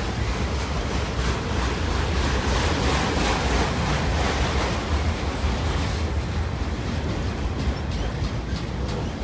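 Freight train of autorack cars passing close by: a steady rumble and rush of steel wheels rolling on the rails, heaviest in the low end.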